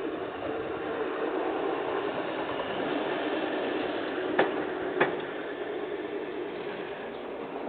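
A light truck passing along the line with a steady engine and rolling hum that swells slightly as it comes closest. Just past the middle come two sharp clacks about half a second apart.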